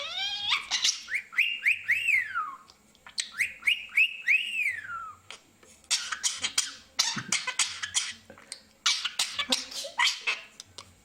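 Budgerigar whistling two runs of short rising-and-falling notes. These are followed by stretches of scratchy chattering and clicks.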